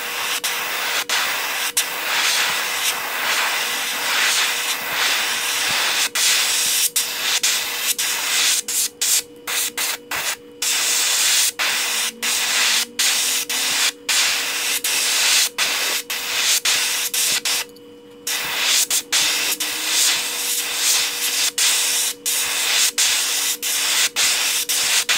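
Paint spraying onto a lure: a hiss of spray in many short bursts with brief breaks between them, over a steady hum.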